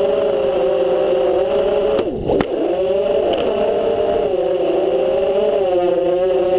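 FPV quadcopter's brushless motors and propellers whining, heard from the quad's own camera, their pitch wavering with throttle. About two seconds in the whine drops sharply and climbs straight back, as when the throttle is chopped and punched in a manoeuvre.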